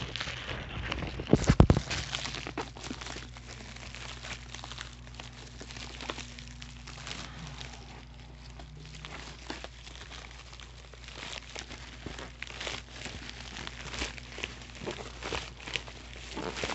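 Plastic packaging crinkling and rustling as a padded bubble mailer is opened and handled, with a few loud knocks about a second and a half in.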